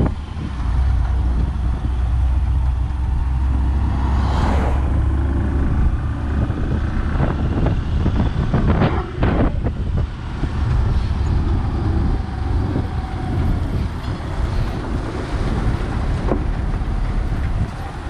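Road noise from travelling right beside a large goods truck: a steady low engine rumble with wind, broken by a brief whoosh about four seconds in and a cluster of short sharp sounds near the middle.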